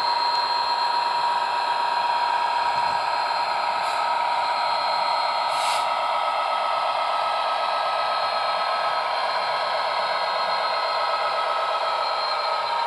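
A 00 gauge Bachmann Class 66 model locomotive running past with its LokSound V5 DCC sound decoder playing a Class 66 diesel engine sound through small onboard speakers: a steady engine drone with a high whine, and a short hiss about six seconds in.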